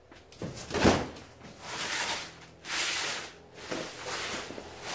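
Flattened cardboard scraping and rustling on a concrete floor as it is moved into place, in several swishes about a second apart, the loudest about a second in.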